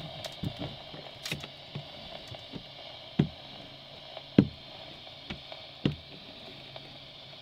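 A few heavy thumps and lighter knocks of footsteps on a boat's deck, heard from inside the cabin over a steady low hum.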